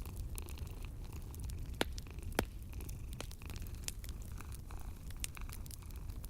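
Wood fire crackling in a fireplace, with a steady scatter of small clicks and two sharper pops about two seconds in, over a continuous low cat purr.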